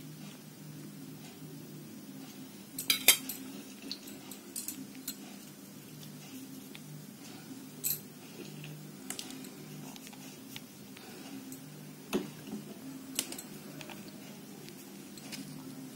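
A metal spoon clinks against a ceramic bowl while thick rabdi is spooned out. There are scattered light clinks, the loudest a quick pair about three seconds in, over a faint steady low hum.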